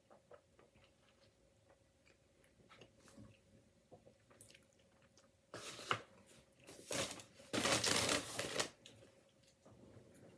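Soft chewing and small mouth clicks of someone eating, then about three seconds of loud paper rustling and crinkling as a paper takeout bag is handled and moved, starting a little past the middle.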